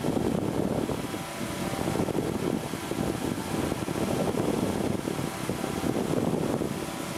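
Powered parachute's engine and propeller droning steadily in flight, with wind rushing over the microphone. It is a little louder through most of the stretch and eases near the end.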